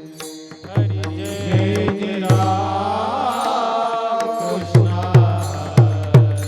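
Devotional kirtan music between chanted lines: a sustained drone, a wavering melodic line in the middle, and sharp drum strokes with a deep booming bass, coming faster in the last couple of seconds.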